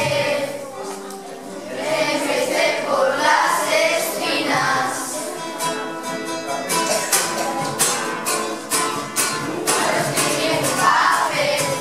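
A group of children singing together to an acoustic guitar. The singing drops back about halfway through, leaving mainly steady guitar strumming, and the voices come in again near the end.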